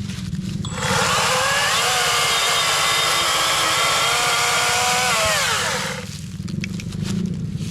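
Atlas 40-volt brushless battery chainsaw revving up abruptly about a second in and running at a steady high-pitched whine for about five seconds. The trigger is then released and the motor winds down with a falling pitch.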